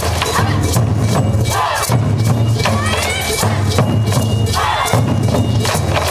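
Japanese taiko drum ensemble playing live: quick, repeated stick strikes over deep, booming drum tones.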